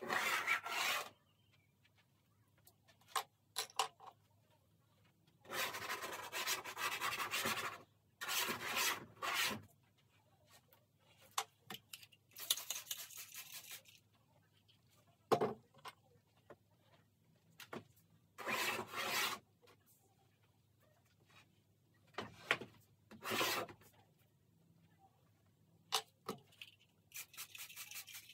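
A graphite or charcoal drawing stick scraping across a stretched canvas in irregular rasping strokes, some lasting a second or two, with pauses and a few light taps between them. Around the middle, a hand spray bottle hisses onto the canvas.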